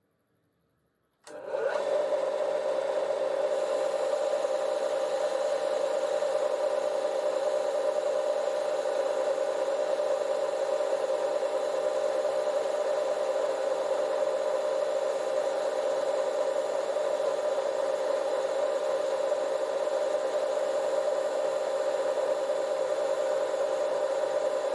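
Metal lathe running steadily, starting abruptly about a second in, with a continuous hum and a rubbing, cutting hiss as it turns steel stock for a jacking screw.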